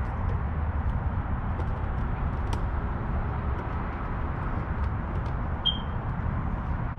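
Steady low outdoor background rumble with no distinct event, and a brief high chirp near the end.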